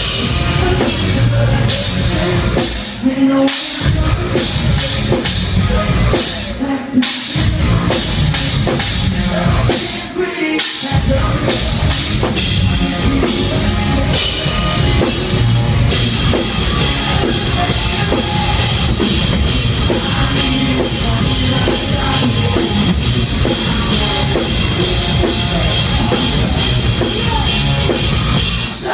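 A metalcore band playing loud and live, with drum kit and heavy guitars. The low end cuts out briefly three times in the first eleven seconds, in stop-start hits.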